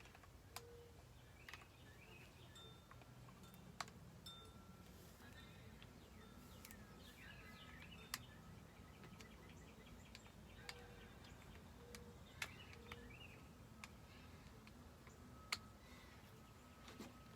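Near silence with faint bird chirps now and then and about seven short, sharp clicks spread through it.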